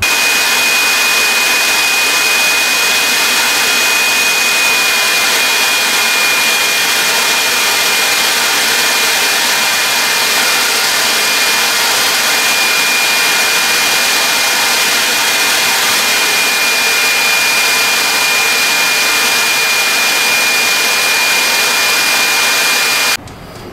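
Spray gun hissing steadily while spraying catalyzed conversion varnish, with a thin steady high whine over the air noise. The hiss cuts off suddenly shortly before the end.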